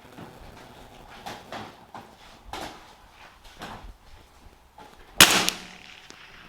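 A single .22LR shot from a CZ 457 AT-ONE bolt-action rifle about five seconds in, a sharp report with a short ringing tail, after a few light clicks. The round is subsonic, clocked at about 1080 feet per second.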